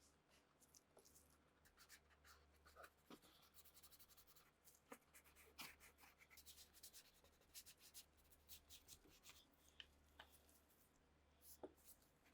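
Faint, irregular scratching and light ticks of hand work on small parts, with a low steady hum underneath.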